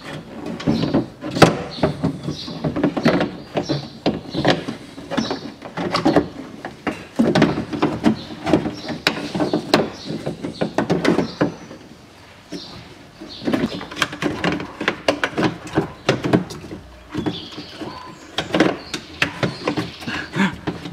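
Plastic and metal clicks, knocks and rattles as a car door lock mechanism and its cable are worked out through the access hole of the inner door panel, knocking against the door's sheet metal. The sharpest knock comes about a second and a half in.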